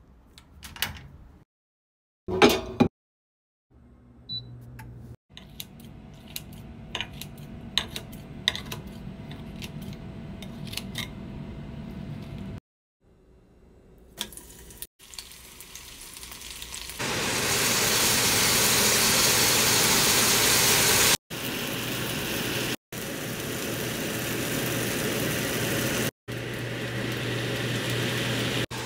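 Cooking sounds in several short clips: a few sharp clicks near the start as an electric stove knob is turned, then light taps over a steady hum, then from about halfway a loud steady sizzle of food frying in hot oil in a pan.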